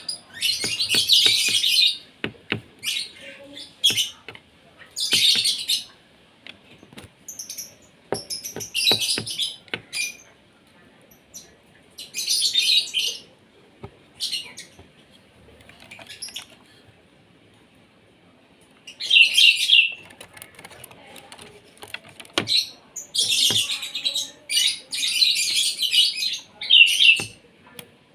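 Asian pied starling (jalak suren) calling in bouts of loud, harsh chattering and whistled notes, with quiet gaps between bouts and a long run of calls near the end. A few sharp clicks come between the calls.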